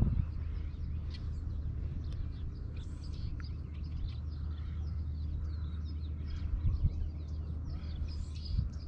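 Several birds chirping continuously in many short, quick notes over a steady low rumble, with a soft knock about seven seconds in.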